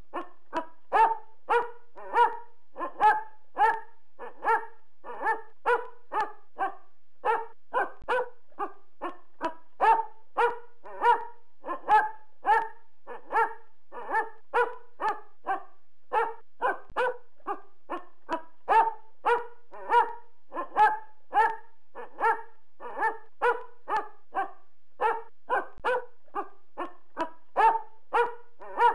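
A dog barking very loudly and continuously, a steady string of short barks at about two a second.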